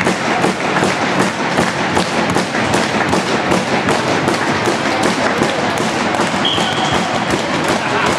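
Hockey arena crowd noise with rapid, fairly even knocking thuds, about four a second, such as spectators banging or drumming. About six and a half seconds in, a short high whistle blast sounds once, the referee's whistle starting the penalty shot.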